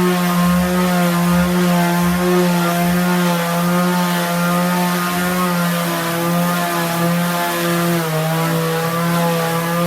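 Electric sander running steadily with a constant motor whine; its pitch dips briefly about eight seconds in.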